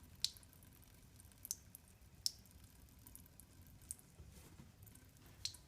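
Water dripping: five faint drips, irregularly spaced about a second apart, over a low steady room hum.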